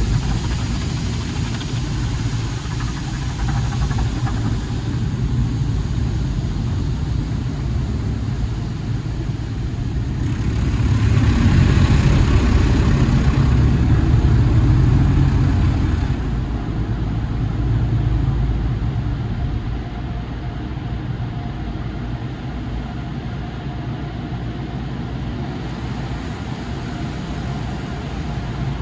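Automatic tunnel car wash heard from inside the car's cabin: a steady rumble of water spray and wash equipment working over the body and windshield. It grows louder for several seconds in the middle as foam is laid over the windshield, then settles back to a steadier, lower rumble.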